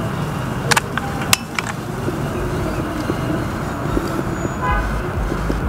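A motor vehicle running close by, its low rumble swelling near the end, over steady outdoor background noise, with a few sharp clicks in the first two seconds.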